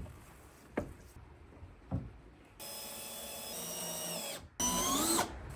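A few sharp knocks, then a power drill driving a screw into the wooden door frame: one steady run of about two seconds, then a short second run rising in pitch.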